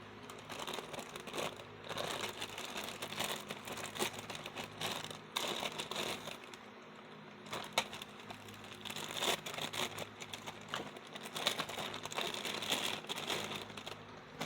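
Plastic wrapping crinkling and crackling irregularly as a small figure is unwrapped and handled, with a few sharper crackles along the way.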